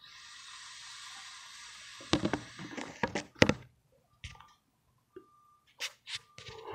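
A steady airy hiss for about two seconds as a draw is taken through a hookah hose. It is followed by a run of knocks and bumps from the phone being handled, the loudest about three and a half seconds in.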